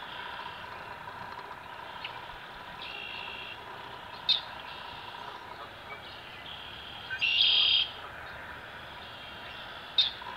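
Small birds calling in the marsh: repeated short, high, buzzy calls, with two sharp single chirps about four and ten seconds in and the loudest call about seven seconds in.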